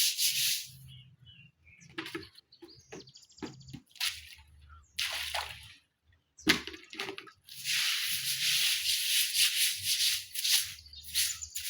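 Brisk brushing strokes scrubbing a surface, a fast rhythmic scratchy hiss. It breaks off about a second in, leaving a few scattered knocks and clicks, and starts again about two-thirds of the way through.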